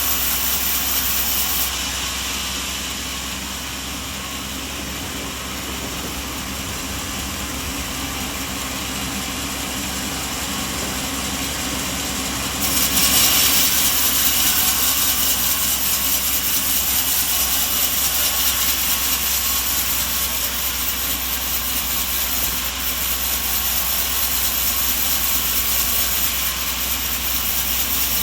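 Sawmill machinery running steadily with a constant low hum and hiss, getting louder about 13 seconds in.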